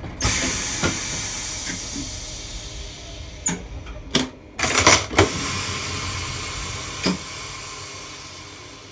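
A stationary train letting off compressed air: a steady hiss that starts at once and slowly dies away. Several sharp clicks and knocks fall in the middle, the loudest a short cluster about five seconds in.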